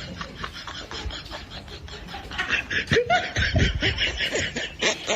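A person laughing in short, choppy bursts, starting a little before halfway.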